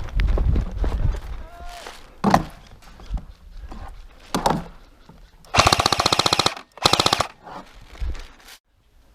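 Airsoft rifle firing: a couple of single sharp shots, then two rapid full-auto bursts, the first about a second long and the second shorter, a little past halfway through.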